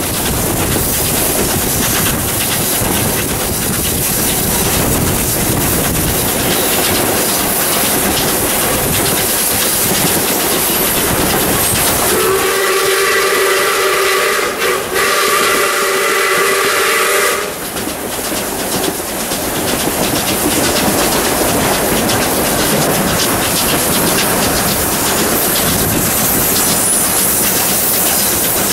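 Steam locomotive 621, a South Australian Railways 620-class 4-6-2, working up a grade with its train, giving steady loud running and steam noise. About halfway through it sounds its whistle, several tones at once, for about five seconds with a short break partway.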